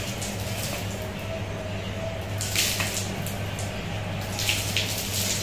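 Water poured from a small steel jug over a hanging snake, splashing and dripping onto a concrete floor, over a steady low hum.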